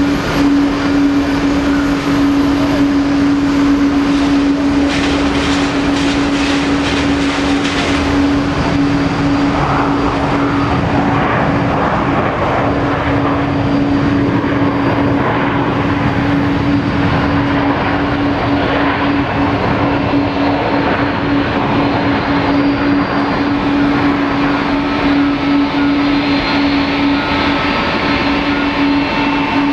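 Boeing 737-800 jet airliner with CFM56 turbofan engines landing and rolling out down the runway: a steady jet roar, with a constant low hum held underneath it throughout.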